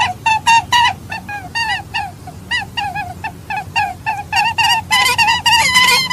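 Several birds giving short, rapid pitched calls, about three or four a second and overlapping, growing denser and shriller about five seconds in.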